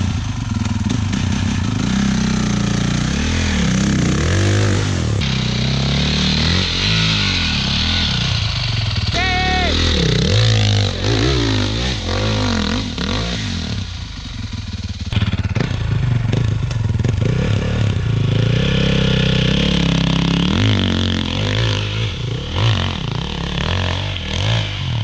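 Dirt bike engines revving hard in bursts, the pitch rising and falling over and over, as the bikes labour through a deep mud hole.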